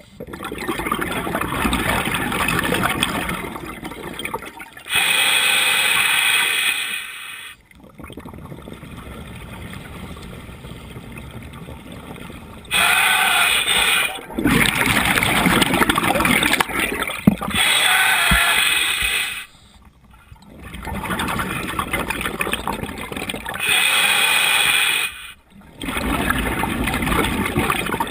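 A scuba diver breathing through a regulator underwater: hissing inhalations alternate with gurgling, bubbling exhalations over several breaths, with a quieter pause in the middle.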